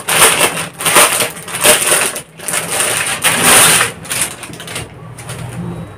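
Plastic packaging crinkling and rustling in a string of bursts as a garment is pulled out of its polybag. The noise settles after about four seconds.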